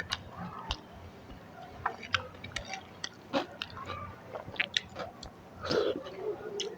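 Close-miked chewing of a mouthful of food, with scattered sharp wet mouth clicks and smacks and a couple of fuller, wetter bites.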